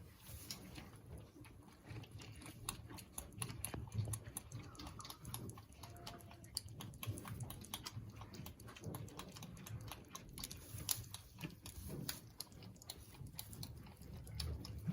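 Boer goat kid suckling at its mother's teat: quick, irregular wet smacking and sucking clicks, lip smacking as it drinks.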